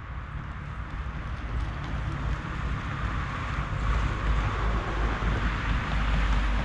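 Electric scooter riding over rough ground: tyre rolling noise with wind rumbling on the microphone, growing louder over the first four seconds or so and then holding steady.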